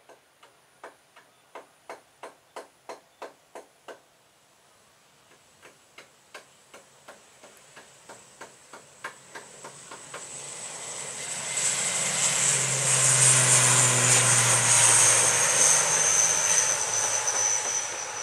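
A run of sharp, regular clicks, about three a second, through the first ten seconds. Then an ATR 72-500's twin Pratt & Whitney PW127 turboprops at takeoff power grow loud from about ten seconds in as the aircraft rolls past and lifts off, with a high whine that drops slightly in pitch and a low drone underneath.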